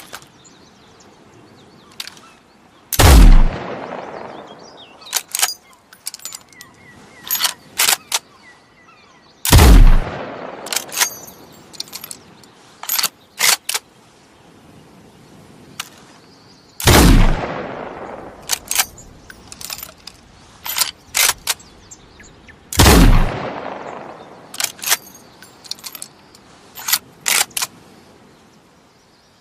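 Chassepot needle rifle, an 11 mm single-shot bolt-action breechloader, fired four times, each shot with a long fading echo. Between shots come runs of short metallic clicks from the bolt being worked to reload.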